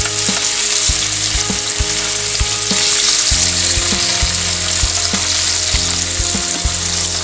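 Masala-coated sardines frying in hot oil in a small pan, a steady sizzle as more pieces are laid in one by one.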